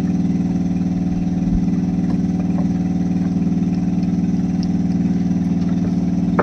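An engine on a squid-jigging fishing boat running steadily at idle, an even, unchanging low hum.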